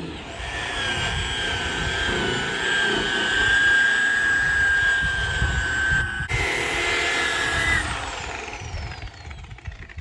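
A cordless drill spins a wool polishing ball against a bare aluminum boat hull with a steady high motor whine. About six seconds in, a rotary polisher runs with a higher-pitched whine. It is then switched off and winds down, its whine falling in pitch as it fades.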